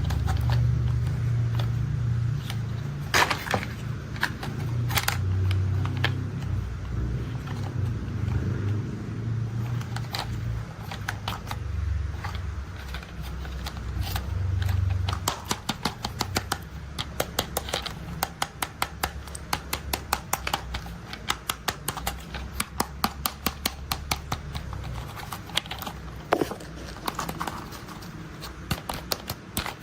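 Toy construction vehicles being handled and played with: a low rumble through the first half that dies away about halfway, then a run of quick clicks and taps, several a second.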